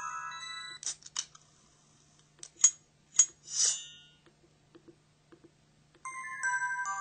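Mobile phone sound effects: a simple electronic tone melody ends, then a string of short clicks and chimes follows. The two loudest are sharp clicks nearly three seconds in, then a sparkly swishing chime. After a faint lull, another electronic tone melody starts near the end.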